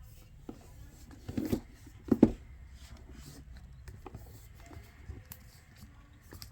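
Cardboard packaging being handled and opened: two soft thumps about a second and a half and two seconds in, the second the louder, followed by light scrapes and small clicks.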